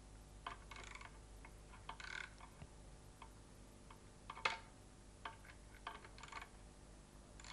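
Faint, irregular metallic clicks of a hand socket wrench working the camshaft bearing-cap nuts loose on a BMW M42 16-valve cylinder head, with one louder click about four and a half seconds in.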